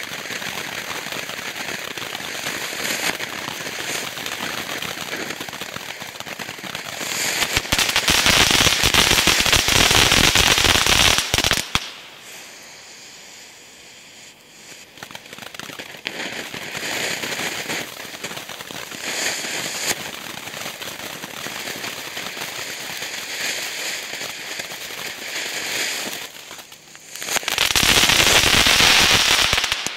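Shotgun Fireworks 'Sassy Cat' firework fountain spraying sparks with a continuous hiss and crackle. It surges louder twice, for a few seconds about a quarter of the way in and again near the end, with a quieter stretch after the first surge when it dies down to a small flame.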